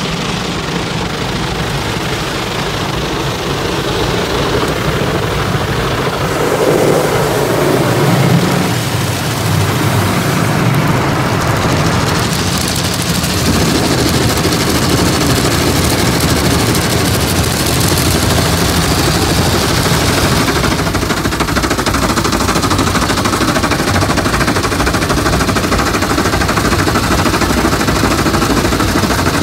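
Automatic car wash's spinning cloth brushes beating on the windshield and roof, with water spraying over the glass, heard from inside the car: a loud, dense, rapid slapping that grows louder over the first several seconds and then keeps on steadily.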